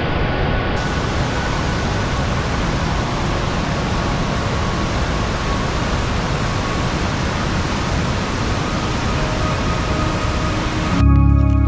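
Steady rush of river water spilling over a weir and through rapids. A music track with a deep, held bass note comes in near the end.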